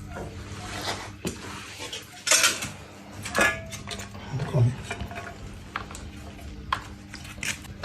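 Metal tools and parts clinking and scraping irregularly as the generator is worked on, with a faint steady low hum underneath.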